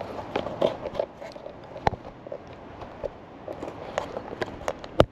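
Footsteps on concrete and light handling clicks, irregular, with two sharper clicks, one about two seconds in and one near the end.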